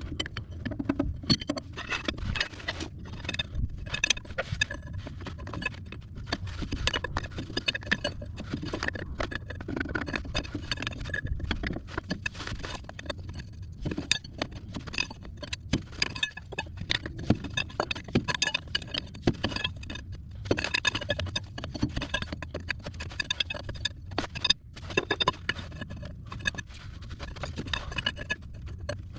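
Wrench and metal hose fittings clinking, knocking and scraping in irregular taps while a hydraulic line fitting is tightened on an excavator.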